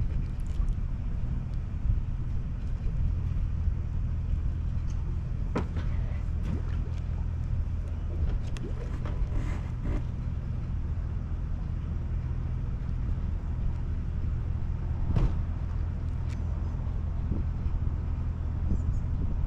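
An engine running steadily at idle, a low even hum, with a few scattered clicks and knocks over it.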